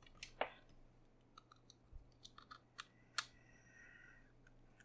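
Faint scattered clicks and ticks of a small precision screwdriver against the screws and case of an iRiver iHP-120 MP3 player as its case screws are driven back in, with two sharper clicks, one about half a second in and one a little past three seconds.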